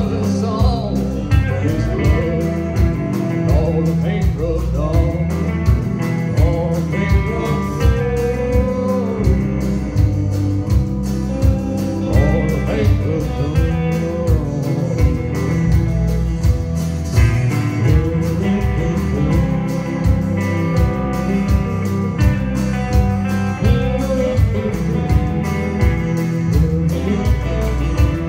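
Live band playing a song: a singer over electric and acoustic guitars with a steady drum beat.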